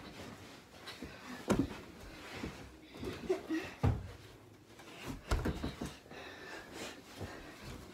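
Several separate soft thumps, the clearest about a second and a half, four and five seconds in, of pillows and stuffed animals being thrown and landing on a bed and floor, with rustling of bedding and toys being handled between them.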